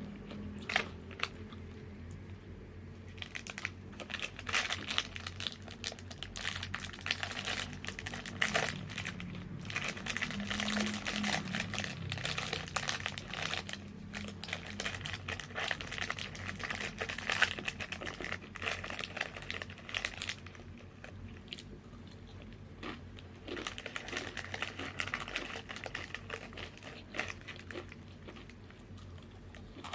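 Crunchy chips being bitten and chewed close to the microphone: dense runs of crackling crunches, with two brief lulls, one just after the start and one about two-thirds of the way in.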